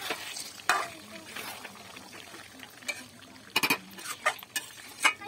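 Spatula scraping and clanking against a metal kadai as meat is stirred and slow-fried in spiced oil (kosha), over a low frying sizzle. The clanks come irregularly, the loudest about three and a half seconds in.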